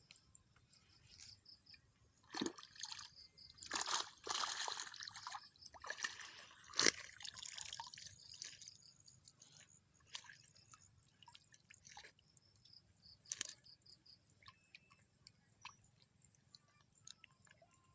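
Water splashing, sloshing and dripping in irregular bursts, busiest in the first half, with a sharp click partway through, over a steady high insect drone.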